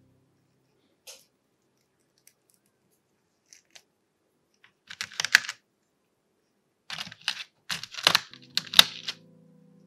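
Small plastic action-figure parts clicking and tapping: a few faint ticks, a quick cluster of clicks about five seconds in, then a louder run of clicks and plastic rattling near the end as parts are pressed into a clear plastic blister tray.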